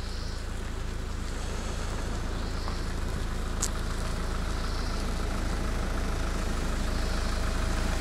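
Hyundai Porter II truck's engine idling steadily, slowly getting louder as the microphone comes closer. A single short high tick sounds about three and a half seconds in.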